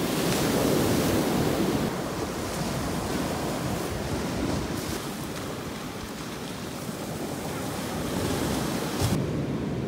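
Sea surf washing on the shore, with wind on the microphone: a steady rushing hiss that swells and eases slowly. Just after nine seconds there is a short knock, and the hiss turns duller.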